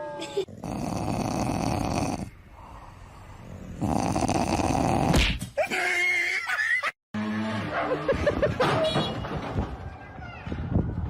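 A dog making vocal sounds across several short clips that cut off abruptly one after another.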